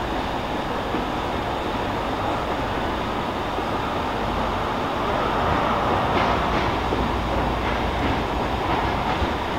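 Cross Country InterCity 125 high speed train, led by power car 43184, approaching slowly into the platform: a steady diesel rumble that grows a little louder about halfway through.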